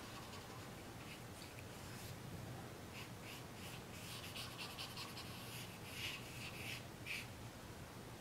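Blending stump rubbing charcoal into drawing paper: faint, short scratchy strokes, coming in a quick run from about three seconds in until about seven seconds in.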